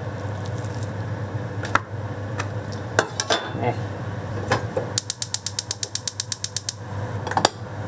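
Gas stove burner being lit: the spark igniter clicks rapidly, about eleven clicks a second for nearly two seconds, until the flame catches. A few separate knocks and clatters of handling a cutting board and plate come before it.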